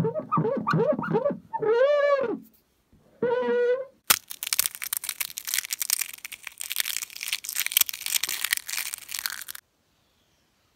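Series of pitched squeaks that glide up and down as a fingertip is rubbed across a slatted blind. Then, after a click, a sponge is crushed in the hand with dense crackling for about five seconds, which stops suddenly.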